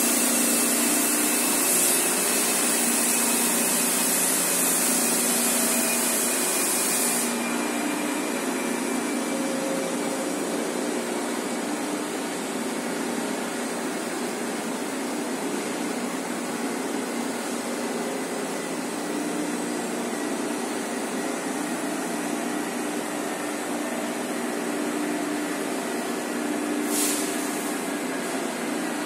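High-speed tissue paper slitting machine running at about 576 metres a minute: a steady mechanical whir of rollers and the moving paper web. A loud high hiss lies over it and stops about seven seconds in, with a short return near the end.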